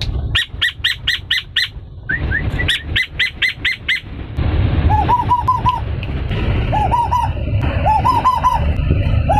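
Caged male Asian koel (tuwu) calling: two quick runs of sharp, high repeated notes in the first four seconds, then short groups of three or four hooked whistled notes repeating through the rest.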